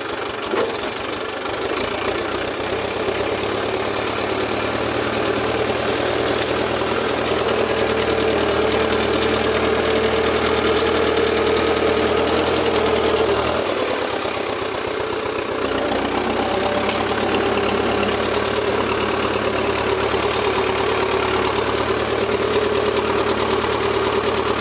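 Valmet 86 iD tractor's diesel engine running steadily at low throttle under load while its front blade pushes through brush. About halfway through, the engine note drops for a second or two, then steadies again.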